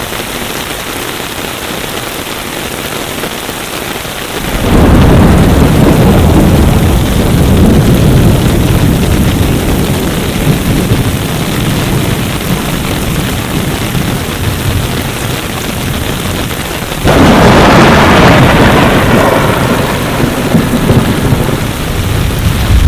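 Heavy rain falling steadily. About four and a half seconds in, and again about seventeen seconds in, a sudden loud low rumble comes in on top of it and slowly fades.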